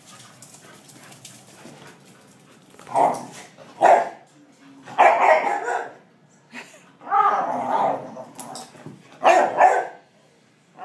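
A dog barking, a string of loud short barks that starts about three seconds in and comes in several quick groups.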